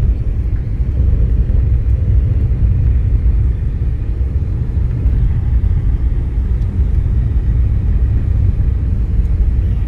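Steady low rumble of a car driving at town speed, heard from inside the cabin: tyre and engine noise with no sudden events.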